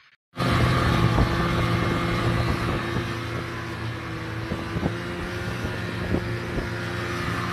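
Vintage two-stroke snowmobile engine running steadily under way, cutting in suddenly about half a second in.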